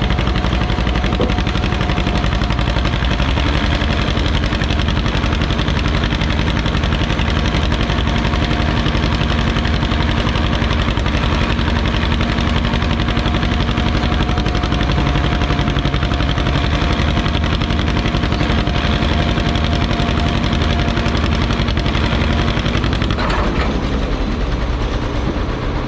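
Two farm tractor engines running steadily as they tow a pulling sled, with a rapid, even pulse. The engine note shifts and eases slightly near the end.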